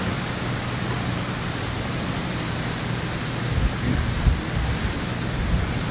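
Steady rushing hiss of storm wind, with low gusts buffeting the microphone about two-thirds of the way through.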